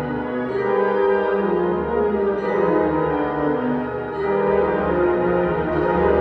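Symphonic wind band playing slow, held chords that shift from one to the next.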